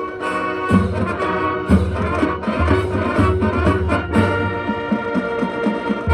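High school marching band playing, with the brass carrying held chords over drums that keep a steady beat.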